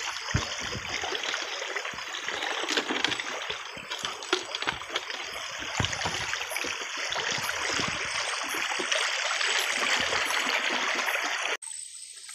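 Water splashing and rushing in a shallow stream as someone wades barefoot and gropes in it by hand, with many small splashes over the flow. The sound drops away abruptly near the end.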